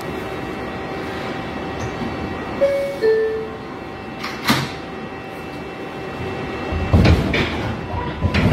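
New York City subway car door-closing chime, two short descending tones, followed about a second later by the sliding doors shutting with a sharp thump. Near the end the train starts pulling out with a heavier low rumble and knocks, and a steady motor whine comes in.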